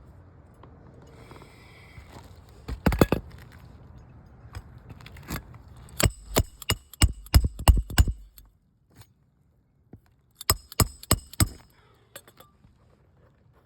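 Hammer driving roofing nails into asphalt shingles: a few blows, then a quick run of about seven strikes, then about five more near the end, each with a short metallic ring.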